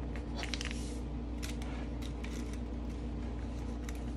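Faint rustles and small scattered clicks of a fabric and pattern piece being handled and pinned on a cutting table, over a steady low electrical hum.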